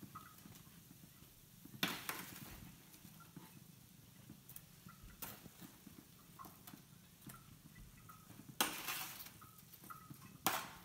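Kitchen tongs clicking and scraping on a metal baking tray as cooked meatballs are picked up, with louder scrapes about two seconds in and again near the end.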